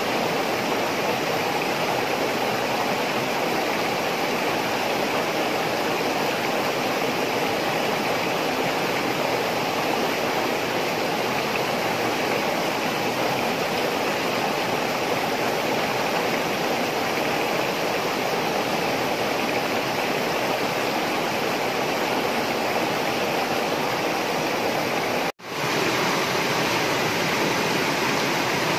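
Steady rushing of a stream or river, with a brief cut to silence about 25 seconds in.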